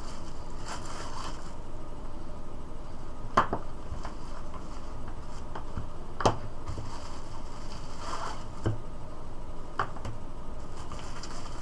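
Handling noises while unboxing: soft rustling, with a few sharp clicks as parts are picked up and set down, the two loudest about three and six seconds in. A steady hiss runs underneath.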